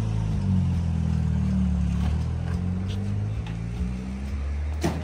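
A motor vehicle's engine running at low, steady revs close by, easing off near the end, with one sharp knock just before it stops.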